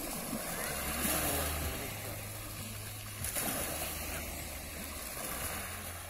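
Small sea waves washing onto a pebble beach, the wash swelling about a second in and again a little past three seconds, over a low steady hum.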